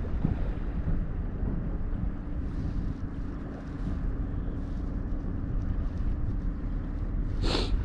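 Wind buffeting the microphone over the low, steady rush of the sea, with a faint steady hum through most of it and one short burst of noise near the end.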